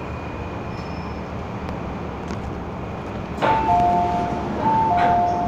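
MTR M-Train car running, a steady rumble of wheels on rail. About three and a half seconds in, a click is followed by a two-note falling chime that sounds twice over the train's public-address speakers, the chime that comes before an onboard announcement.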